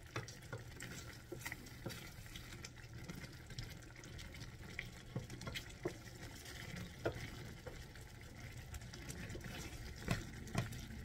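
Wooden spatula stirring a thick, creamy stew in a stainless steel skillet, with irregular light scrapes and taps against the pan, a few stronger ones near the end. The sauce simmers quietly underneath.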